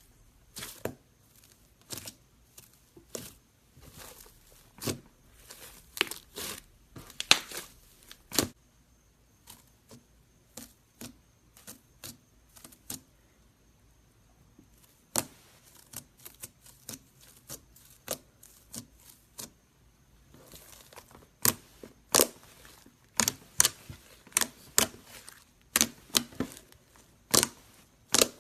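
Pink slime with gold being squeezed and worked by hand, giving irregular sharp clicks and pops as air pockets in it burst. The pops thin out and soften for a stretch in the middle, then come thicker and louder again.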